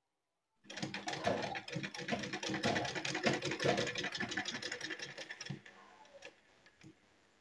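Black domestic sewing machine running a seam: a fast, even clatter of the needle and shuttle that starts just under a second in and stops after about five seconds, followed by a few light ticks.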